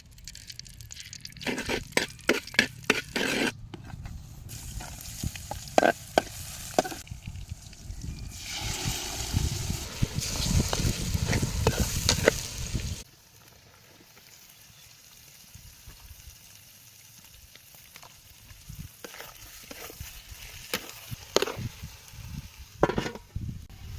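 Food frying and sizzling in a pan, broken by sharp clicks and knocks of utensils. A loud steady sizzle stops abruptly about halfway through, after which there are only quieter scattered clicks.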